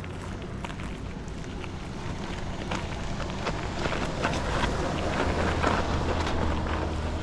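Wind buffeting the action camera's microphone during a bicycle ride, a steady low rumble with rolling noise and scattered small clicks and rattles, growing louder from about two seconds in.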